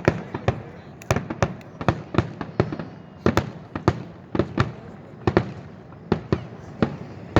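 Aerial fireworks going off in a rapid, irregular string of sharp bangs, about two to three a second, each with a short echoing tail.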